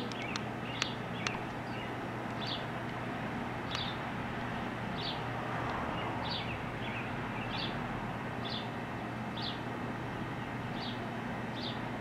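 A bird gives a short high chirp about once a second over a steady background hum. A few sharp clicks come in the first second and a half.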